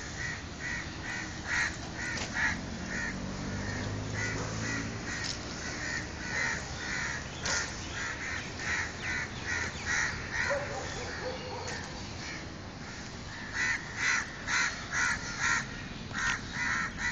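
Crows cawing over and over in runs of short calls, about two a second, with a louder run near the end.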